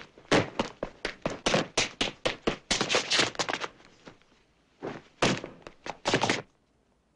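Foley props struck in quick succession, a rapid run of thuds and knocks performed as sound effects for an action scene. The hits come about three to four a second for roughly four seconds, then a few harder ones, and stop about six and a half seconds in.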